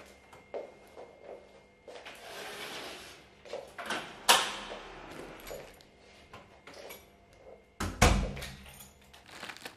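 Front door opening and being shut: a run of latch clicks and knocks, a sharp click about four seconds in, and the door closing with a heavy thump about eight seconds in.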